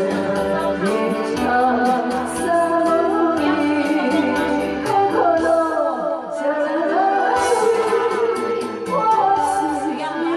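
A woman singing a song into a microphone over backing music.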